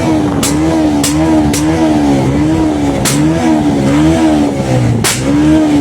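Bajaj Pulsar 150's single-cylinder engine revved up and down over and over, with sharp backfire pops cracking from the exhaust five times, the 'misfire' effect it has been set up to make.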